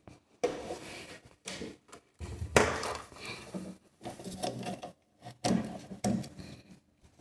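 Irregular handling noises: a string of knocks and rustles as cables and objects are moved on a workbench, the loudest knock about two and a half seconds in.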